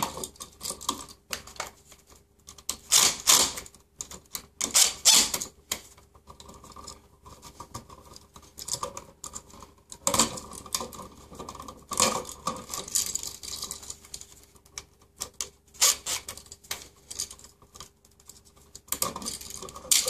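Irregular clicks, rattles and rustling of a metal wall outlet and stiff copper wires being handled as they are pulled out of an electrical box, with louder clusters of clicks every few seconds.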